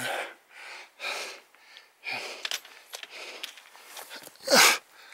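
A climber breathing hard from the exertion of scrambling up steep rock: loud breaths about once a second, ending in a loud voiced exhale that falls in pitch near the end.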